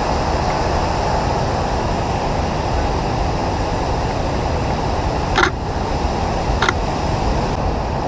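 Steady rush of a river running over rocks and rapids. Two short sharp clicks sound over it, about five and a half and six and a half seconds in.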